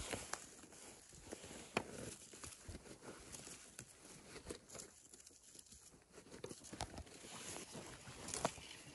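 Rustling and crackling of gloved hands working through frosty moss and dry leaf litter to pull up mushrooms, with scattered small snaps and clicks, the sharpest two about two seconds in and near the end.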